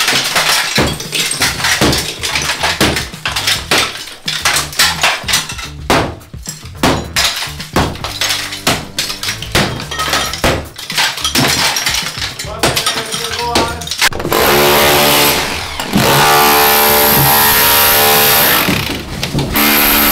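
Demolition work: a rapid, irregular run of blows and breaking, crashing material, then a power tool's motor running steadily and loudly for the last six seconds.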